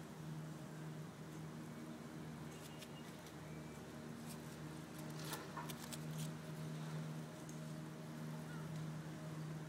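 Bumblebee buzzing, a steady low hum that grows a little louder and softer as it goes, with a few faint light clicks about five seconds in.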